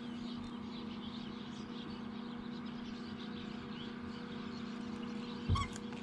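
Small birds chirping faintly in the background over a steady low hum, with a single thump near the end.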